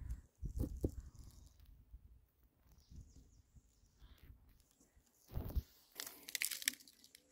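Rustling and crackling handling noises, with a low thump about five and a half seconds in and a patch of sharp crackles just after.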